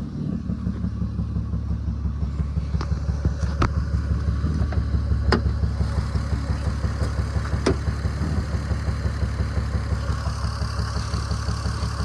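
Lexus GS300's inline-six running with a consistent misfire, its drone pulsing unevenly, with a few sharp clicks. The stumble is from one, possibly two, dead cylinders, which the owner suspects are caused by worn coil packs or plug wires.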